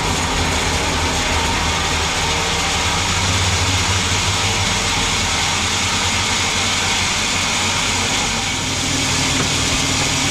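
Sawmill machinery running steadily: a low engine hum under a loud, even hiss.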